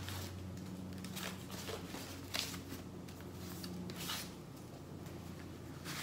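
Paper US banknotes being handled and counted by hand: several brief crisp rustles and flicks of the bills, over a low steady hum.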